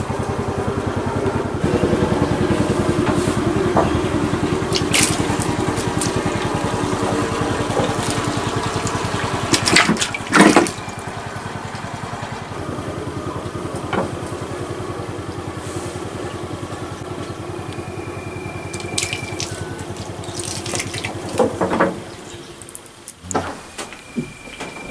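A small engine running steadily with a rapid, even pulse, cutting out about 22 seconds in. A few sharp knocks come about ten seconds in.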